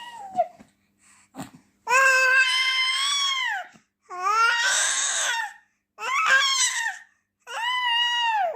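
A six-month-old baby girl crying in four long wails, each rising and then falling in pitch, with short breaths between them; the second wail is harsh and raspy.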